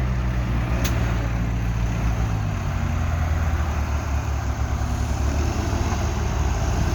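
Diesel engines of heavy equipment (a loader, a backhoe and a Dresser 125E crawler) running under load with a steady, deep drone as the machines push the crawler over snow and ice.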